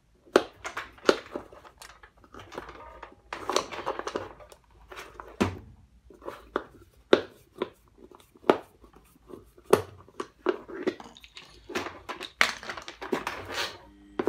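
Screwdriver working screws out of a vacuum cleaner's plastic housing, with irregular clicks, scrapes and knocks as the plastic casing and wheel are handled.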